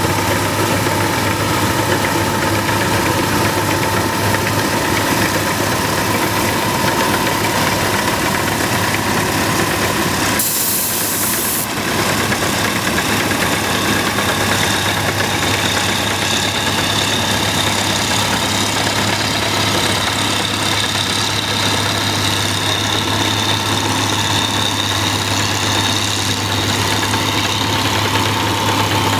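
Rice combine harvester engine running steadily under load. There is a brief break with a high hiss about ten seconds in, and a high whine joins from about halfway through.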